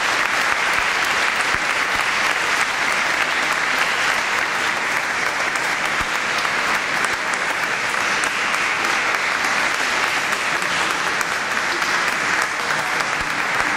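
Congregation applauding, a steady, unbroken clapping that holds at the same level throughout.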